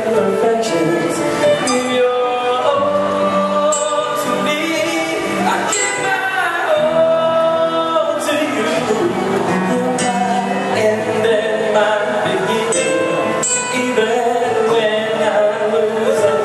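Live band music with a man singing into a microphone over drums and cymbals.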